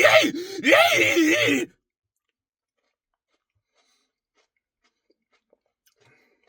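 A man's drawn-out groaning voice, its pitch swooping up and down, for about the first second and a half; it stops suddenly, followed by near silence broken only by a few faint ticks.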